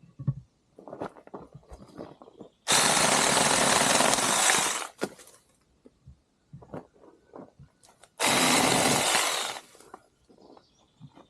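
Saker 6-inch battery mini chainsaw running in two bursts, about two seconds and then a second and a half, each starting and stopping abruptly as it cuts into branch wood. Faint crackles and clicks of wood and handling between the bursts.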